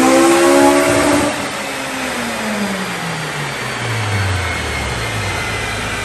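K20Z3 inline-four in a Honda Civic EG on a chassis dyno: held at high revs, then let off about a second in. The engine and the spinning dyno rollers wind down with a steadily falling pitch, the coast-down the dyno uses to measure drivetrain loss.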